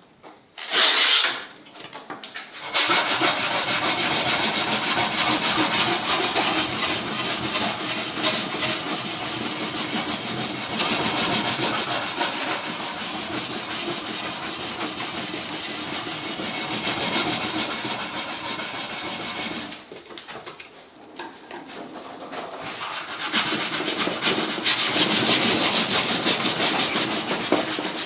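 A wooden bow being shaped with an abrasive tool: continuous scraping of the tool across the wood, with a short knock about a second in. The scraping starts about three seconds in, pauses around twenty seconds, and resumes a few seconds later.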